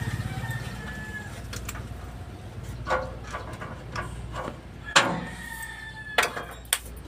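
Sharp metallic knocks and clanks at uneven intervals, a few of them ringing briefly. The loudest comes about five seconds in.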